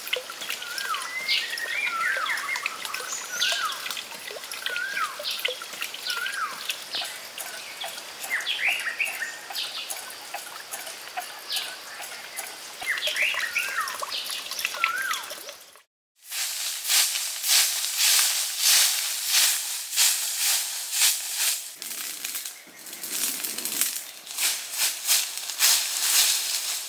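Birds chirping over a light trickle of water for the first half. Then, after a sudden break, a stiff straw broom sweeps dry, leafy ground in loud repeated strokes.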